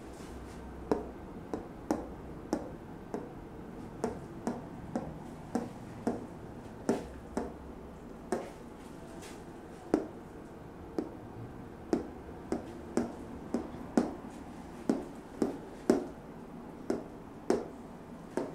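Plastic marker tapping on a whiteboard as it points to word after word, a sharp tap about every half second to second at an uneven pace, over faint room hum.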